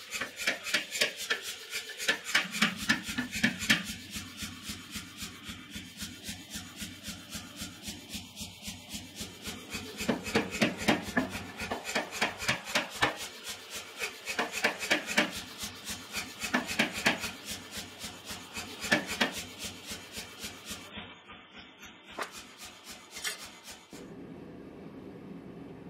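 Power hammer dies striking a glowing-hot steel block held in tongs, a rapid run of blows at several a second, heavier in spells, as 2-inch round stock is squared down. The blows stop near the end, leaving a steady low hum.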